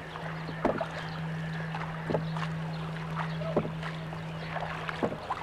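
Wooden paddle dipping and pulling through lake water beside a small wooden boat, four strokes evenly spaced about a second and a half apart. A steady low hum runs underneath.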